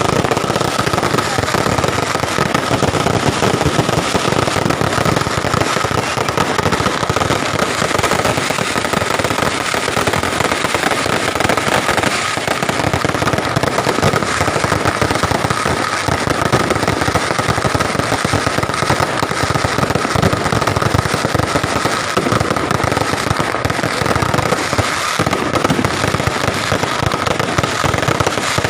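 Fireworks and firecrackers going off in a dense, unbroken run of rapid cracks, with a steady high tone running through.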